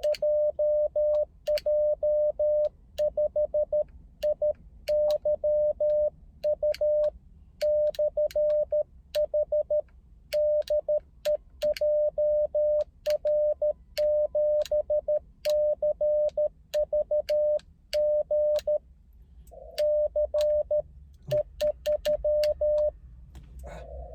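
Morse code (CW) from an amateur radio transceiver: a steady mid-pitched tone keyed on and off in dots and dashes, with sharp clicks along the keying and a few short pauses.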